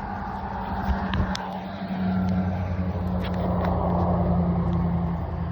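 A vehicle engine running with a steady low hum that grows louder about two seconds in, with a few light clicks of handling.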